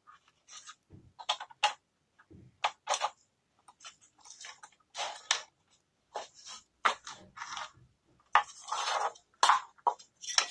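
Irregular clicks, taps and scraping noises as an opened audio amplifier and its wiring are handled, with short gaps between them.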